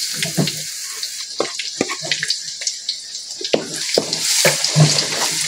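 Minced garlic sizzling in hot oil in a wok, with a wooden spatula scraping and knocking against the pan as it is stirred in.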